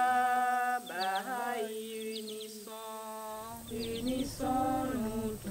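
Background music: slow singing, long notes held and sliding from one pitch to the next, with a low accompaniment coming in about three seconds in.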